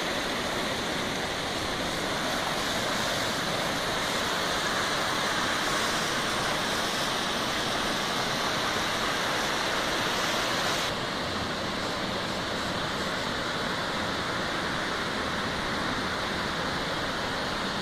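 Water spilling from the floodgates of a full reservoir down the concrete spillway of the Cajuru dam, a steady rushing noise. It drops slightly in level about eleven seconds in.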